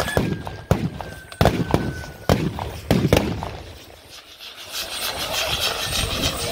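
Firecrackers going off: about half a dozen sharp bangs at irregular gaps over the first three seconds, then a lull.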